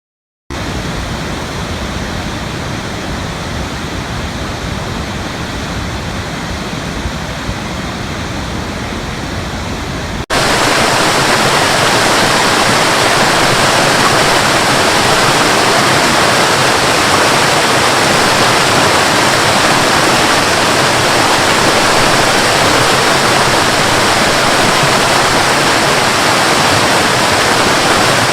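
Steady rushing water. It starts about half a second in, and after a sudden cut about ten seconds in it comes back as a louder, fuller rush.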